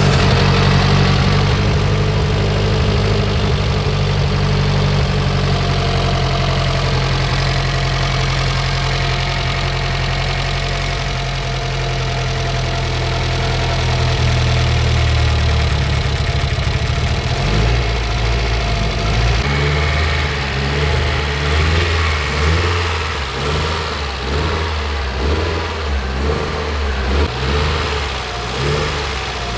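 Freshly rebuilt Mitsubishi 4G63 turbocharged four-cylinder running at a steady fast idle on its first break-in run. About two-thirds of the way through, the engine note drops lower and turns uneven.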